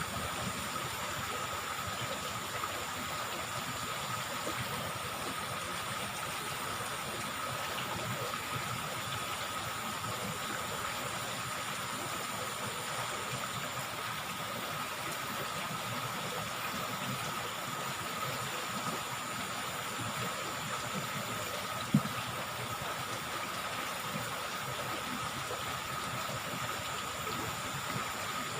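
Steady rush of flowing river water, with a thin steady high tone over it and one sharp tap about three-quarters of the way through.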